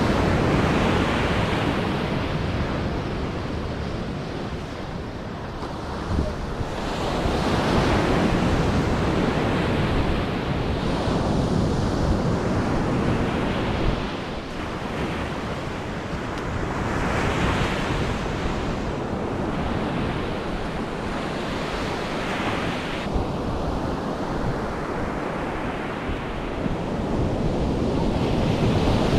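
Ocean surf breaking and washing up the beach, swelling and fading every several seconds, with wind buffeting the microphone.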